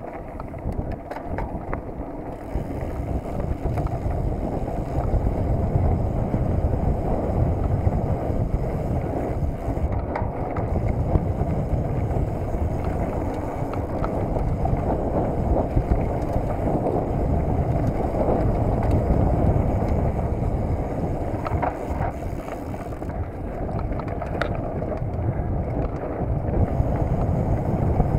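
Mountain bike rolling fast along a dirt trail, heard from a handlebar-mounted camera: wind buffeting the microphone and tyres running over the ground, with scattered clicks and rattles from the bike over bumps.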